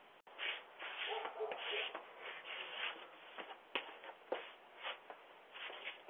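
Faint, irregular shuffling and rustling with a few sharp clicks, heard through a doorbell camera's thin-sounding microphone.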